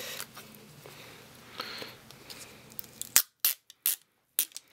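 Hands handling a small iPod touch: faint rustling, then a handful of sharp separate clicks and taps in the last second and a half.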